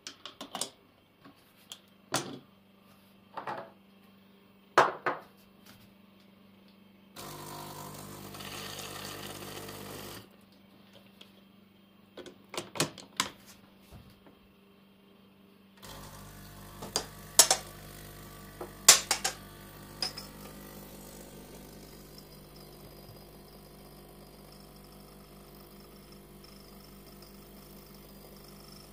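De'Longhi EC 270 pump espresso machine: metal clicks and knocks of the portafilter and tamper being handled, a short run of the pump about seven seconds in, then the machine's vibratory pump humming steadily while the shot is pulled into two glasses, with a few sharp clicks near the start of the pumping.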